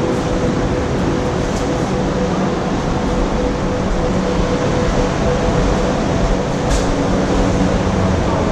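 Sea surf rumbling in a sea cave: a steady, loud roar of water echoing off the rock.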